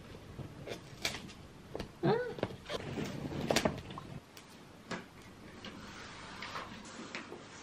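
Pleated paper window blind rustling and crinkling as it is handled and pressed up against a window frame, with scattered sharp clicks and taps. A short pitched sound, like a brief hum or creak, comes about two seconds in.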